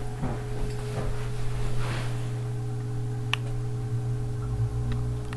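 Reef aquarium equipment running: a steady low electrical hum with an even hiss, typical of a sump pump and circulating water. A faint click sounds about three seconds in.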